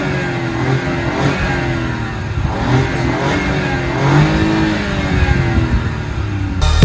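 2018 BMW 1 Series engine revved repeatedly through a new dual exhaust with the rear silencer deleted, the pitch rising and falling with each blip of the throttle.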